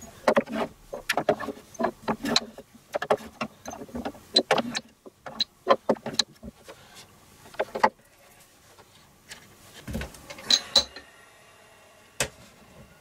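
Small glass shot glasses clinking against one another and against wood as they are set into a wooden rack: many quick clinks, some with a brief high ring. Near the end come a few knocks and one sharp click.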